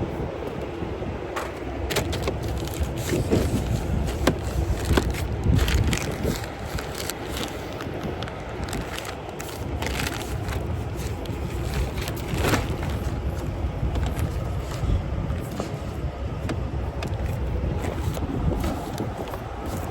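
Strapping down a flatbed load: irregular clicks, knocks and scrapes over a steady low rumble.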